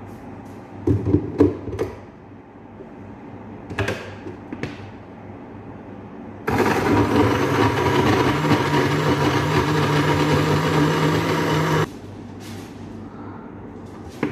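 Electric countertop blender running for about five seconds, chopping lemon pieces in water. Its motor tone rises slightly as it comes up to speed, then it cuts off suddenly. Before it starts, the plastic jar knocks and clatters as it is set onto the base.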